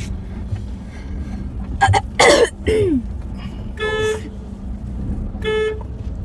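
Low rumble of a car's engine and road heard inside the cabin. About two seconds in comes a loud raspy burst with a tail sliding down in pitch, followed by two short car-horn toots, about a second and a half apart.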